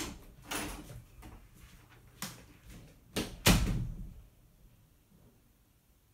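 A few knocks and footsteps on a wooden floor, then a heavy thump about three and a half seconds in.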